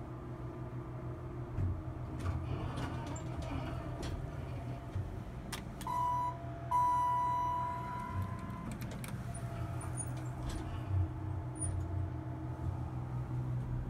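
Inside a Dover hydraulic elevator cab: a steady low hum, with scattered knocks and clicks from the doors. About six seconds in, the elevator's electronic signal sounds: a short beep, then a longer beep of the same pitch lasting nearly two seconds.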